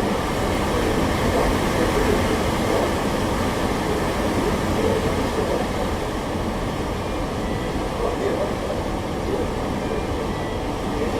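Stormy sea and wind: a steady, loud rushing rumble of water and air with no distinct breaks.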